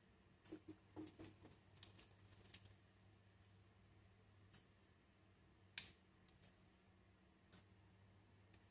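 Faint, scattered clicks and scrapes of a Yankee screwdriver's tip picking the perished leather breech seal out of an air pistol's breech. There is a small cluster in the first few seconds and single sharp ticks after that, the sharpest about six seconds in.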